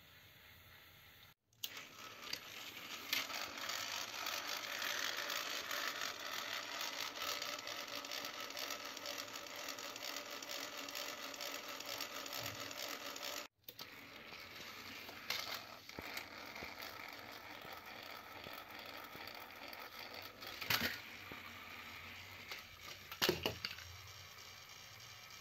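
Small electric motors and gears of battery-powered toy train engines whirring as they run along plastic track. The sound drops out briefly twice, and the later whir is quieter, with a few sharp clacks; the loudest clack near the end fits a toy engine falling off the raised track onto the floor.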